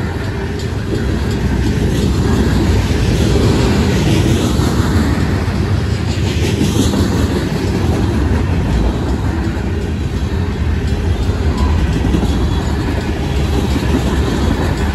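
Freight cars (covered hoppers and tank cars) rolling past close by: a steady low noise of steel wheels running on the rails, growing a little louder about two seconds in.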